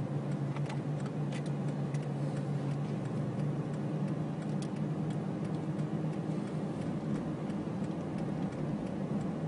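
Steady low hum of a car's engine and road noise heard from inside the cabin while driving slowly, with faint, scattered ticks.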